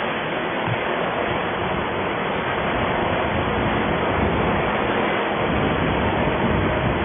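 Steady rushing road and wind noise from riding along in a vehicle through street traffic, with an engine running low underneath.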